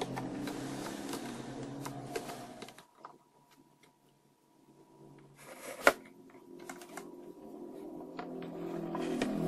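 Soft background music that fades out about three seconds in and comes back toward the end, with scattered small metallic clicks of a screwdriver turning a screw into the MDF speaker box, then handling knocks as the box is picked up and turned, one sharp knock about six seconds in the loudest.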